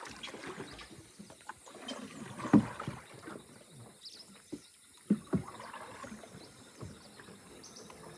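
A small boat being paddled: irregular paddle splashes and knocks against the hull, the loudest about two and a half seconds in and again around five seconds. Short high chirps come in near the end.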